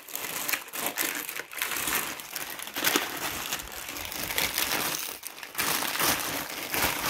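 Thin white plastic bag crinkling and rustling as hands dig into it and pull it open to work the books out, an irregular run of crackles with no let-up.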